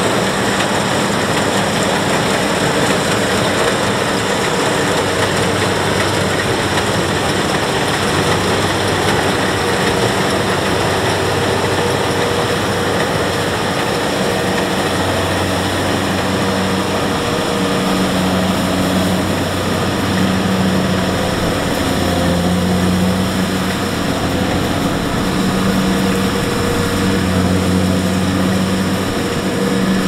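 Kubota DC-70 rice combine harvester working in standing rice, its diesel engine and harvesting machinery running loud and steady under load.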